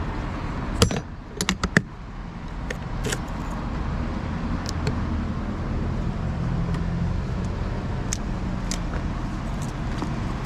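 Light clicks and clinks, as of small metal parts being handled, with a cluster of them about a second in, over a steady low rumble.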